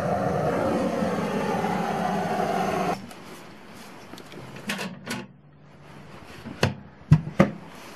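Handheld gas torch burning with a steady hiss against birch firewood in a sauna stove's firebox, shut off suddenly about three seconds in. A few short knocks follow.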